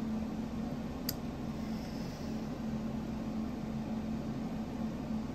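Steady low background hum. One small click comes about a second in as the knife's handle and parts are pressed together by hand.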